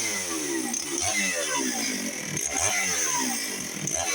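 Dolmar PS-6400 two-stroke chainsaw cutting a large log at full throttle, its engine pitch dipping and climbing again and again as the chain loads up in the wood and recovers.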